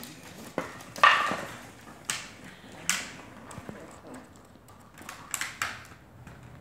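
Plastic water bottle knocked and crinkled by playing puppies: a scattering of sharp knocks and crinkles at uneven intervals, the loudest about a second in.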